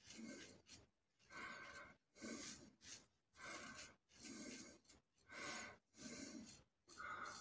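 A Merkur 34G double-edge safety razor with a Wilkinson Sword blade scraping over stubble under the chin and neck, in faint short strokes about one a second, during a final touch-up pass.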